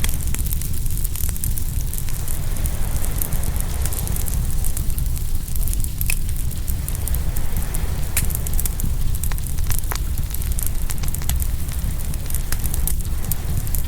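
Open wood fire crackling, with frequent small pops and snaps scattered throughout, over a steady low rumble.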